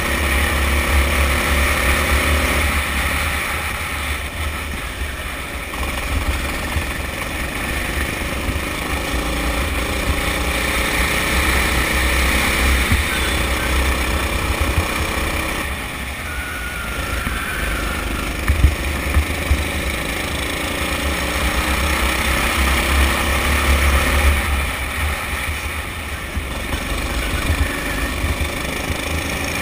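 Onboard sound of a Sodi kart's engine at full race pace: the revs climb steadily along each straight and fall away when the driver lifts for a corner, three times over, under heavy wind rush on the microphone. A few sharp knocks come in the second half.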